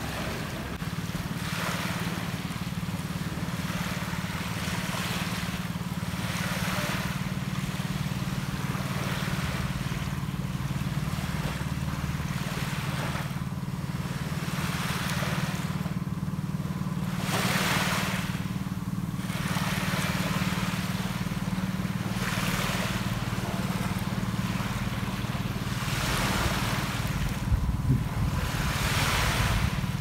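Small sea waves washing onto a sandy beach, the hiss of each wave swelling and fading every two to three seconds, over a steady low hum.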